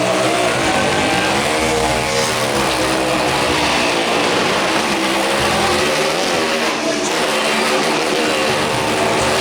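Motorcycle engine running hard while lapping a Wall of Death drum, its pitch rising and falling in waves about every two seconds.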